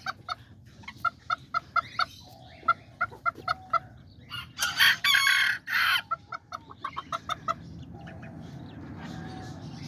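Bantam chickens clucking in runs of short, quick notes, with a rooster crowing once for about a second and a half around the middle.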